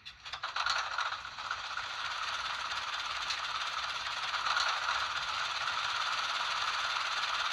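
Model locomotive sound decoder (ESU v5) playing a Caterpillar diesel prime mover starting up through a small drop-in speaker: a rattling start that settles within about a second into a steady running sound with little bass.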